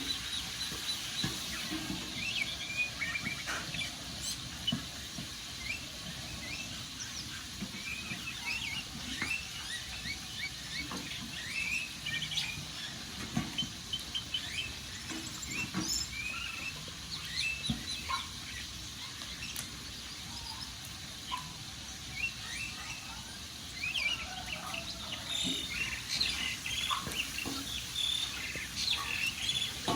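Small birds chirping busily, with many short, overlapping calls, over the steady hiss and occasional sharp pops of a crackling wood fire.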